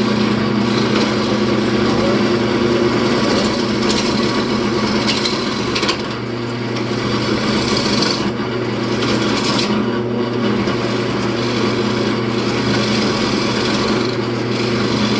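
Wood lathe running with a roughing gouge cutting into a spinning wooden bowl blank to round it: a steady motor hum under a rough, scraping hiss from the cut, which eases off and comes back several times.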